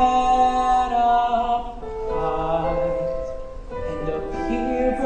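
Voices singing a slow show tune in harmony, with long held notes that change about every one to two seconds.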